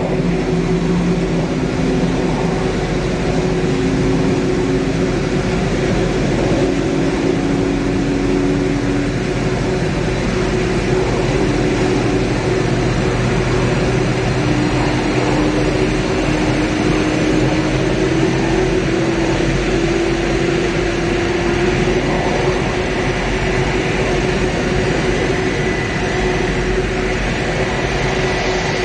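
The four PS-90A turbofan engines of an Ilyushin Il-76TD-90VD running at taxi power: a steady, loud jet noise with humming tones, one of which slowly rises in pitch through the middle, over a faint high whine.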